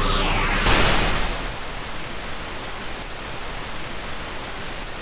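Steady static hiss, like a detuned television or radio, coming in with a short louder burst about a second in.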